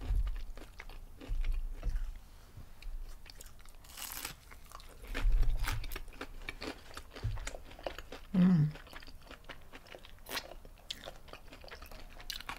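Fried battered shrimp being bitten and chewed, with crisp crunches and crackles scattered throughout and a few soft low thuds of chewing.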